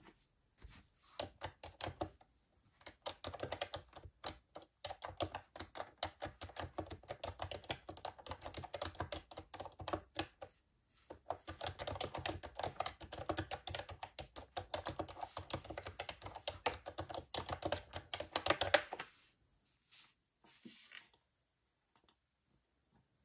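Typing on a computer keyboard: fast, continuous runs of key clicks, a brief pause about halfway, then the typing stops near the end with a few last taps.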